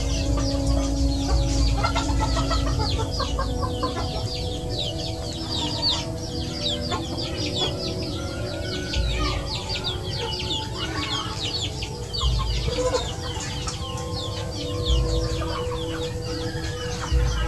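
Flock of chickens clucking and calling while feeding, with many high, quick, falling peeps throughout.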